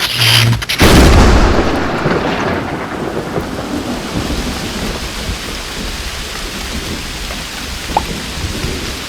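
Thunderstorm sound effect that starts abruptly: a loud thunderclap about a second in, fading over the next few seconds into steady rain.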